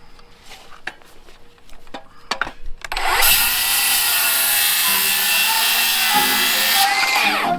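A power tool runs loudly for about four seconds, starting abruptly about three seconds in and winding down near the end, after a few light scrapes and knocks.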